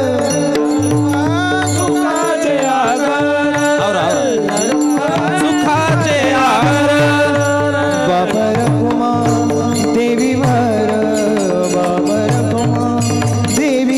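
Devotional kirtan music: sung melody over a steady held drone, with a regular drum beat and small clashing cymbals keeping time.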